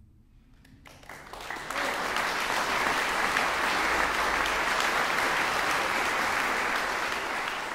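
Audience applauding. The clapping starts about a second in, swells over the next second and then holds steady.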